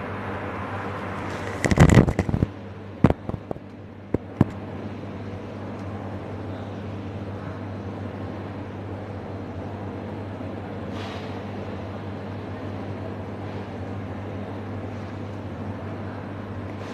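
Steady machine hum, as from a running fan, with a loud burst of clattering knocks about two seconds in and a few sharp clicks over the next two seconds, as the air-conditioner's wiring and casing are handled.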